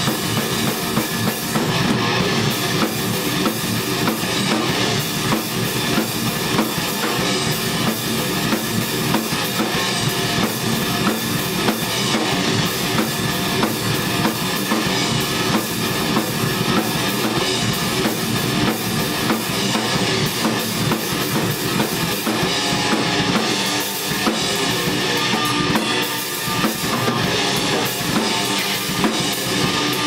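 A rock band practising: electric guitar through an amplifier with a full drum kit, with bass drum, snare and cymbals, playing together steadily and loud.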